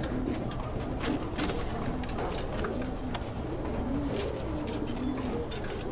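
Many domestic pigeons cooing in a wire-caged loft, their low wavering coos overlapping, with a few light clicks.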